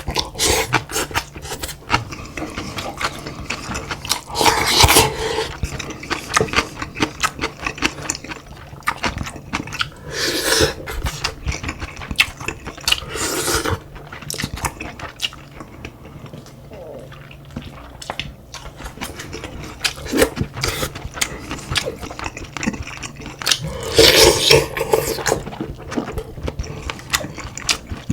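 Close-up eating sounds: chewing and mouth noises over rice, cod-head stew and kimchi, with many small clicks and a few louder, noisier bursts about 5, 10, 13 and 24 seconds in.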